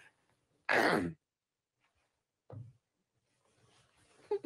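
A man stifling a fit of laughter. A loud breathy exhale like a sigh comes about a second in, then a short softer breath at about two and a half seconds, with near silence between, and he starts to break into giggles right at the end.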